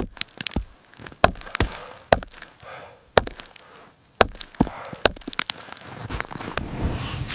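Ice being chipped away with a run of sharp chopping blows, about a dozen strikes at an uneven pace. Near the end a rushing noise rises underneath.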